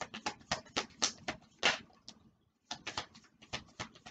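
A deck of oracle cards being handled: a quick, irregular run of sharp card snaps and taps, pausing briefly a little past halfway before picking up again.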